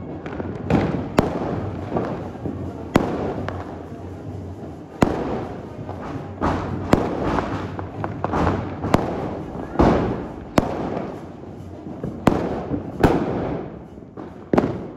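Diwali firecrackers going off: a string of sharp bangs at irregular intervals, roughly one a second.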